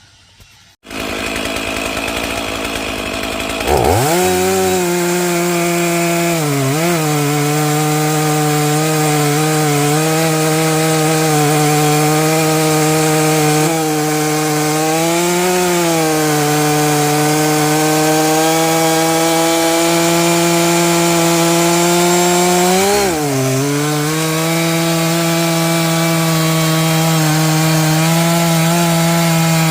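Stihl MS461 chainsaw with a 32-inch bar running at full throttle, cutting through a large Douglas fir log. About a second in, a rushing noise starts. About four seconds in, the engine sweeps up to a steady high pitch that wavers briefly a few times under the load of the cut.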